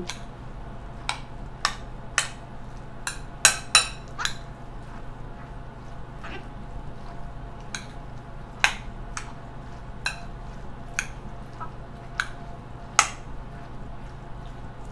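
A metal spoon clinking against a glass bowl as a chopped nopal and tomato salad is stirred: sharp, irregular clinks, roughly one a second, a few of them much louder, over a steady low hum.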